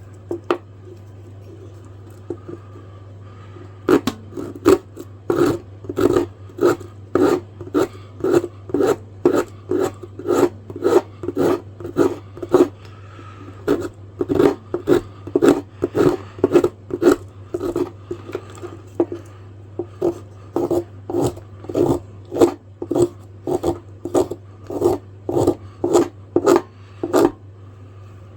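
Rasp working freshly glued wooden knife handle scales, shaping and rounding their edges in steady repeated strokes, about two a second, starting about four seconds in and stopping near the end. A steady low hum runs underneath.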